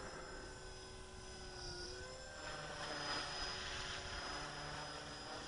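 Blade 330X electric radio-controlled helicopter flying overhead: a faint, steady whine from its motor and rotors, the pitch wavering slightly as it manoeuvres.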